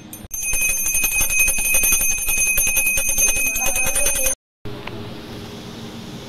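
Brass puja hand bell rung rapidly and continuously for aarti: a bright, steady ringing with fast clapper strikes that cuts off abruptly about four seconds in. Fainter room noise follows.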